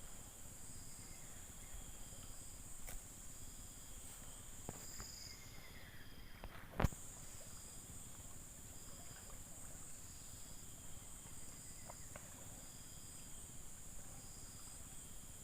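Steady insect chorus: a continuous high buzz with a pulsing chirp repeating a little more than once a second. A single sharp click sounds about seven seconds in.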